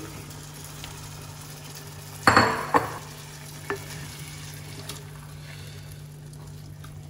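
Food frying in a pan of sunflower oil while a utensil stirs it, over a steady low hum. A short, loud burst of scraping and sizzling comes a little over two seconds in, with a smaller one just after.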